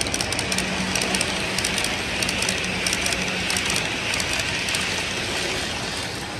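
Model train running on layout track: a rapid, uneven clicking of wheels over the rails, with a steady hum through the first half or so.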